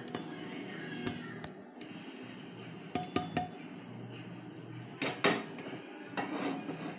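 Spatula scraping and knocking against a frying pan and a stainless steel bowl as fried onion tempering is tipped and scraped into batter: scattered clinks and knocks, three quick ones about three seconds in and two louder ones about two seconds later.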